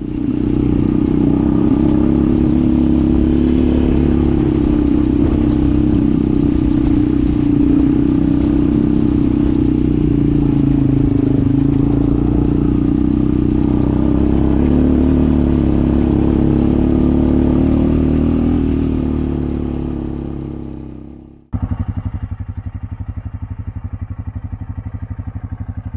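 ATV (quad bike) engine running under steady throttle on a rough, rocky track. It fades out about 20 seconds in, and after a cut a quieter engine idles with an even pulse.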